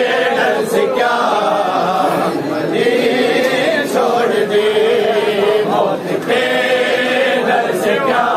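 A group of men chanting a Shia mourning noha in unison, unaccompanied, in short repeated phrases.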